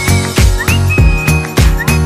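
Background music: a whistled melody over a steady beat and bass.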